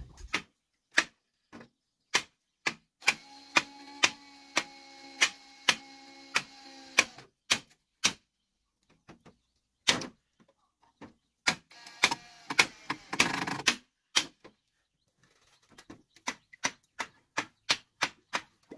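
Repeated sharp knocks or taps, about two a second, stopping briefly twice and quickening near the end. A steady hum sounds under them for a few seconds in the first half and again more briefly later.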